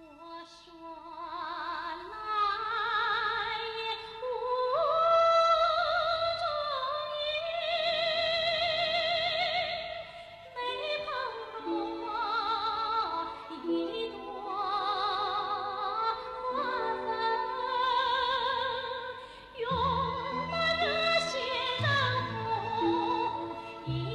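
A woman singing long, high, wavering notes with a wide vibrato over an orchestral accompaniment, in the style of a TV drama theme song. It fades in at the start, and low instruments join near the end.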